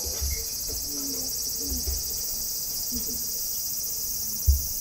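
Steady high-pitched chorus of singing insects, with a few low bumps, the loudest a short thump near the end.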